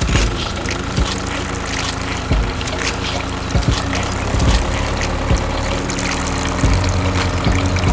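A small motor running steadily with a constant hum, with scattered clicks and knocks over it.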